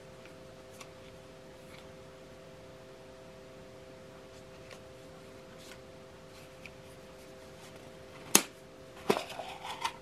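Light handling taps on the plastic shell of a mini USB humidifier, then about eight seconds in a sharp plastic click, and a moment later a second click followed by a brief plastic scrape as the top is pulled off the body. A faint steady hum runs underneath.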